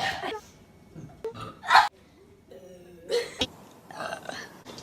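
A young woman burping: a few short burps in a row, the loudest a little under two seconds in.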